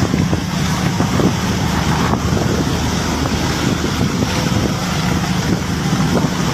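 Fishing boat's engine running steadily with a low drone, under strong wind buffeting the microphone.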